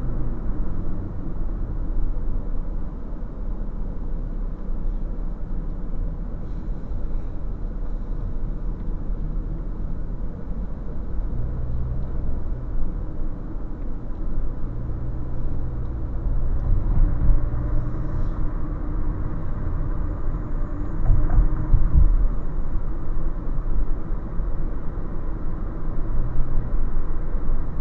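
Road and engine noise inside a moving car's cabin: a steady low rumble, a little louder with a few low bumps past the middle.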